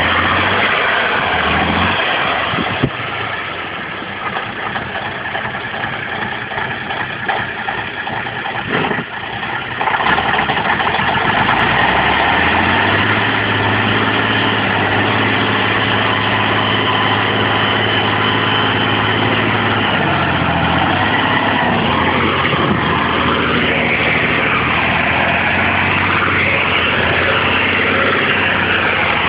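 Praga V3S truck's air-cooled diesel engine running under load as the truck crawls over steep, muddy ground. It drops back for a few seconds and comes in louder and steady from about ten seconds in, then its pitch rises and falls several times near the end.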